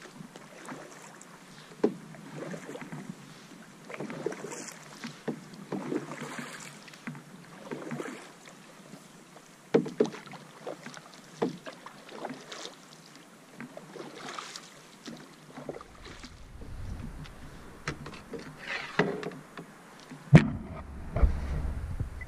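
Canoe paddle strokes in calm water, a short swish and splash about once a second. Near the end a low rumble of wind on the microphone comes in, and a sharp knock is heard.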